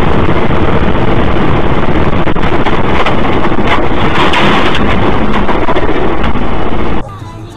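Dashcam recording of a moving vehicle: loud, distorted road and wind noise with a few knocks in the middle, cutting off abruptly about seven seconds in.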